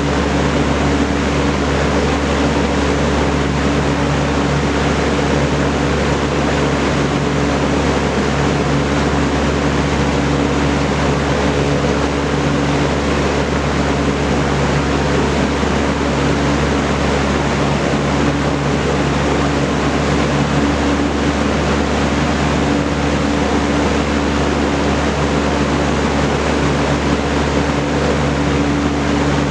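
Vintage Kenmore Roll-A-Matic 20-inch reversible box fan with a four-blade propeller running steadily: a constant rush of air over a low, even motor hum.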